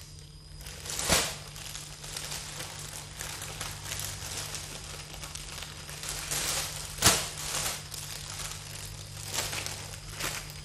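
Plastic-wrapped foil balloons crinkling and rustling as they are handled and pulled from a stack, with two sharper, louder crackles, about a second in and about seven seconds in.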